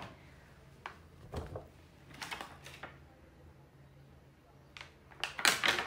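Hard clear plastic packaging and a cardboard box being handled as a camera tray is slid out. It makes a series of short rustles and clicks, the loudest near the end.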